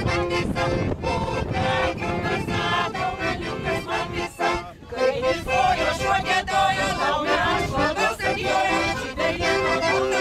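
A group of singers singing together to a piano accordion, with a short break in the song about four and a half seconds in.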